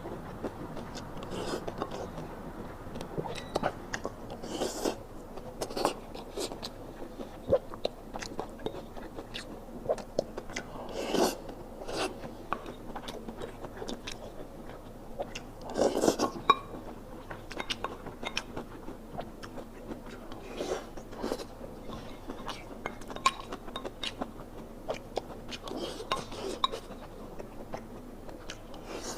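A person chewing mouthfuls of rice and stir-fried eggplant, green pepper and pork, with utensils clicking against a bowl now and then. The sounds are irregular and soft, with a few louder bites and clinks.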